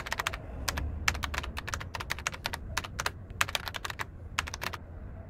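Keyboard typing: keys clicking in quick, irregular runs over a faint low rumble.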